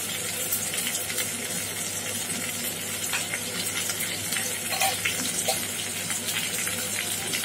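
Chopped onions, curry leaves and green chillies sizzling steadily in hot oil in a kadai, with light crackling, just after a ground spice paste is added.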